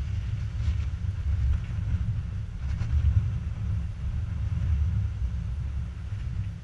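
Wind buffeting the microphone in an uneven low rumble that surges and fades, with surf breaking on rocks as a fainter wash behind it.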